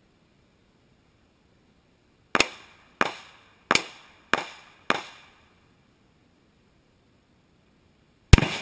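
Five .308 Winchester rifle shots from a Sabatti rifle in quick succession, about two-thirds of a second apart, starting about two seconds in, then a louder shot near the end.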